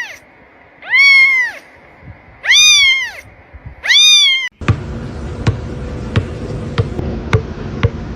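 A cat meowing three times, each meow long and rising then falling in pitch. About halfway through it cuts to a steady background hiss with a run of sharp taps, two or three a second.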